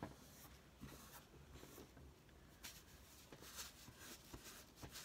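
Faint, uneven rubbing of a cloth over paper as a glued magazine cutout is smoothed flat onto a cardstock page.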